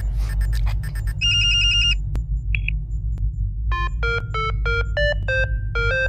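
Electronic computer beeps over a steady low hum. A fast warbling trill comes about a second in, then a single short bleep, and then a run of about seven short beeps at changing pitches, like a little tune.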